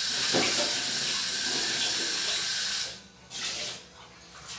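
Kitchen tap running water into a blender jar to rinse it: a steady rush of water that stops abruptly about three seconds in, followed by a brief second rush of water.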